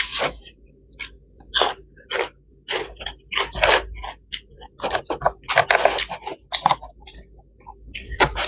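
A person chewing and crunching food close to the microphone while eating chicken rice by hand, in irregular crackles a few a second, with a longer, denser stretch about five and a half seconds in.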